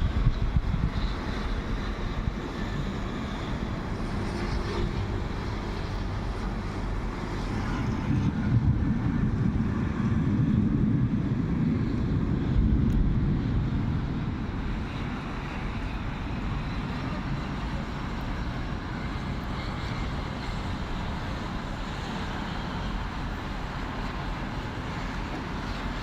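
Sea and rain: a steady low rushing noise that swells louder for several seconds about a third of the way in, then settles back.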